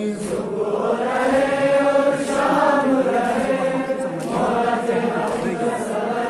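Male voices chanting an Urdu noha, a Muharram lament, in a slow drawn-out melodic line that rises and falls in pitch without a break.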